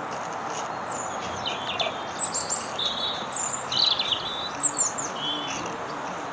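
A songbird singing a run of quick chirps and short trills, starting about a second and a half in, over a steady background hiss.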